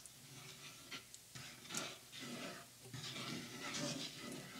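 Wooden spatula stirring a thin, watery curry in a nonstick pan: faint, irregular scraping strokes through the liquid, with occasional light knocks of the spatula against the pan.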